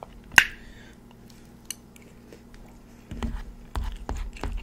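Close-miked eating sounds: a sharp mouth click as a forkful of biryani is taken, then scattered soft clicks of chewing, and from about three seconds in a fork clinking and scraping in a bowl of biryani with low thumps.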